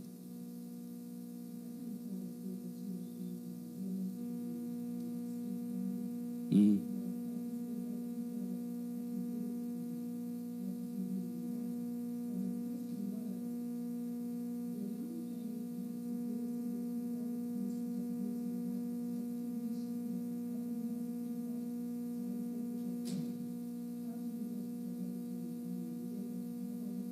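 Steady electrical mains hum from the sound system, with a faint off-microphone voice talking underneath. A single sharp thump comes about six and a half seconds in.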